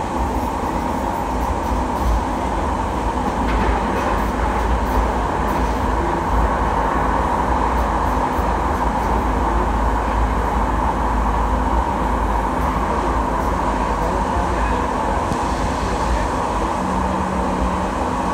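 MUNI light rail train running through a subway tunnel, heard from the cab: a steady rumble of wheels on rail, with a low hum coming in near the end.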